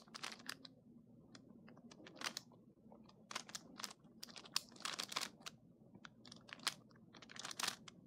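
Plastic clicking and clacking of a Pyraminx puzzle being twisted by hand, in quick irregular clusters of clicks with short pauses between turns.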